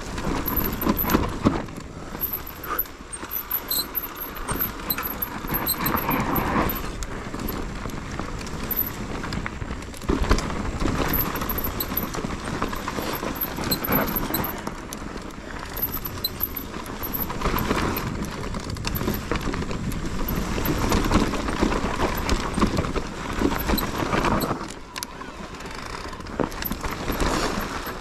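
Mountain bike riding over a rough trail: tyres rolling over dirt and stones and the bike rattling over bumps, in uneven surges, with a low rumble of wind on the microphone.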